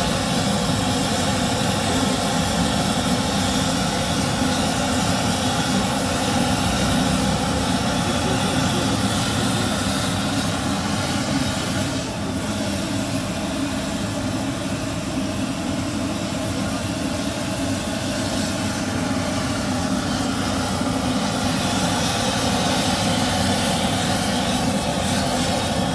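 Steady roar of a gas burner firing under a large karahi of hot oil, with jalebi batter sizzling as it fries.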